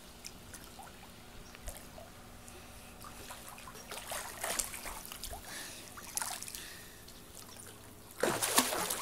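Pool water sloshing and trickling in an above-ground pool as a swimmer moves in it, with small scattered splashes and a louder rush of noise near the end.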